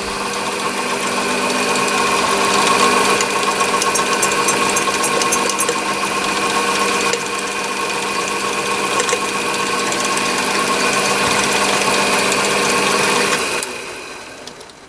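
A Chinese mini lathe running at a steady speed, its motor and headstock gears making a steady hum with a higher whine. It is switched off about two seconds before the end and spins down.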